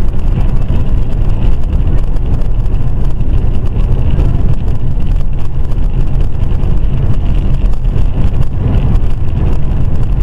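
Steady, loud road and engine noise inside a moving car's cabin, heaviest in the low rumble.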